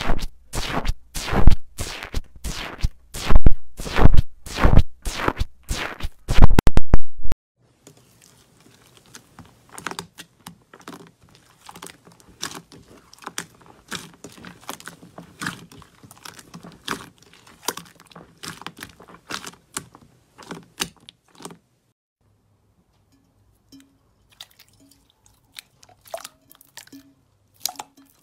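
Loud crackling and popping from a bubbly foam slime pressed with a metal tool, about three pops a second. After about 7 seconds it gives way to softer, scattered crackling as hands knead a smooth blue slime, and near the end there are faint clicks and squelches from a silver slime being squeezed.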